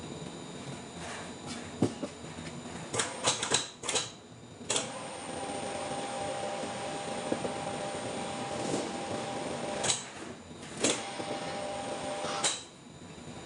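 Sharp metallic clicks and knocks, then a steady machine hum that switches on with a click about five seconds in, cuts out near ten seconds, starts again a second later and stops with a click near the end.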